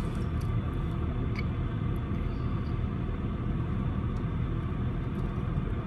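Steady low rumble of emergency vehicles' engines idling in the street, heard through window glass.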